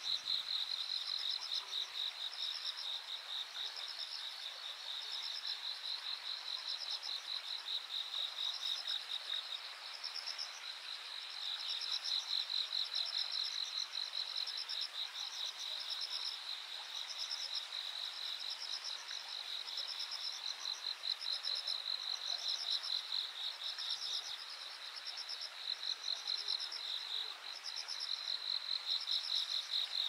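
Insects singing in the grass: a continuous high-pitched, fast-pulsing trill, with a second, higher call repeating in short runs over it.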